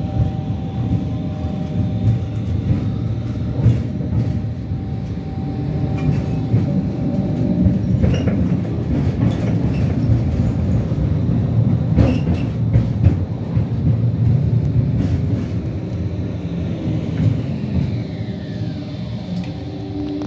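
Tram running along its rails, heard from inside the car: a steady rumble of wheels on track with a few steady motor tones. There are a few sharp clicks about 8 and 12 seconds in, and late on a whine falls in pitch.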